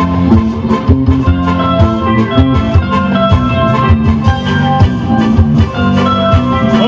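Live rock band playing a song in a reggae-ska arrangement: drum kit, electric guitars, bass and keyboard, heard loud through the PA.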